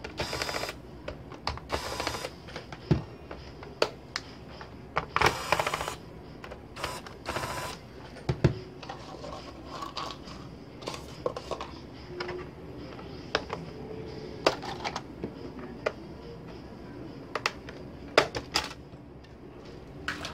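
Electric screwdriver whirring in short bursts, about four in the first eight seconds, as it backs out the bottom-cover screws of a Compaq Presario CQ61 laptop. Between them come many sharp clicks and knocks of the plastic access covers being pried off and set down.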